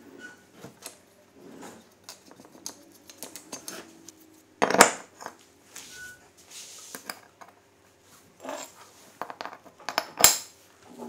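Metal parts and tools being handled on a workbench: irregular light clicks and clinks, with two loud metallic clanks, one about halfway through and one near the end.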